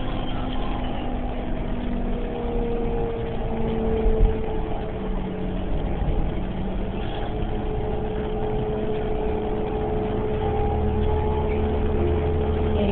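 Cabin sound of a 2011 New Flyer Xcelsior XDE40 diesel-electric hybrid bus running: steady drivetrain hum and rumble with a thin steady whine that rises a little in pitch a few seconds in. There is a brief knock about four seconds in.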